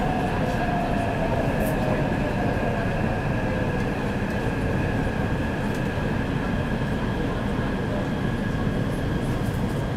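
Taipei Metro C381 train running, heard from inside the passenger car: a steady rumble of wheels on rail with a constant high electrical whine. A motor whine glides down in pitch over the first few seconds.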